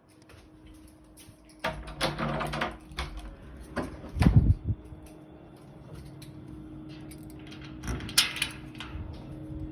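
A steady low hum with two held tones, one above the other, heard most plainly from about halfway in. Knocks and rustles and a heavy thump come in the first half, and a short scraping hiss near the end.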